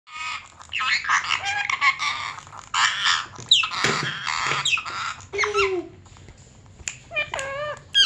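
Indian ringneck parakeet chattering in a run of squawky calls and short gliding notes. It breaks off briefly about six seconds in, then calls again.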